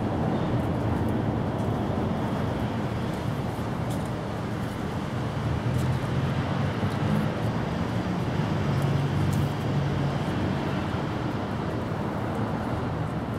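Steady low outdoor background rumble, with a hum that wavers in pitch in places and a few faint ticks.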